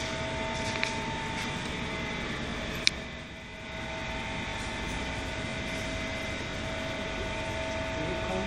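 A 128-tray rotary rack oven running while it bakes: a steady machine hum and rush of air with two steady tones. A single sharp click about three seconds in, after which the noise briefly dips and then recovers.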